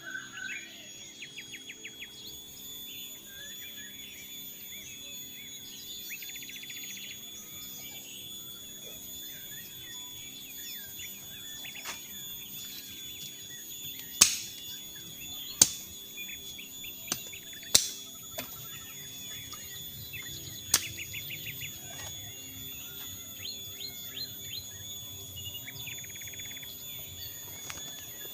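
Forest ambience: a steady high-pitched insect drone with birds chirping and trilling throughout. A handful of sharp knocks or snaps come in the middle, the loudest sounds.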